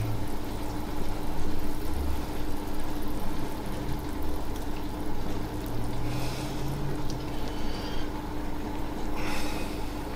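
Melted butter-and-fudge mixture being tipped from a pan onto crushed shredded wheat, over a steady low hum, with two short hissier patches about six and nine seconds in.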